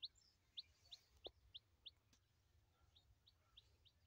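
A small bird calling outdoors: a steady series of short, high, rising chirps, about three a second, growing fainter after about two seconds.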